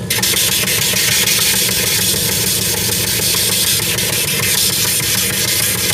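A men's wedge sandal's sole pressed against the spinning abrasive wheel of a shoe-repair finishing machine, grinding it down to shape. A steady grinding hiss sets in abruptly at the start over the machine's constant motor hum.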